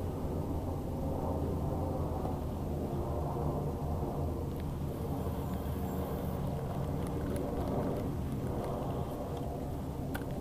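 Steady low hum of a bass boat's motor running, with a few faint clicks over it.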